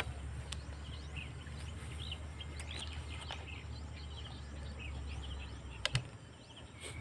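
Small birds chirping repeatedly over a low steady rumble that fades about six seconds in. A few sharp clicks from handling the PCP air rifle, the loudest a double click near the end.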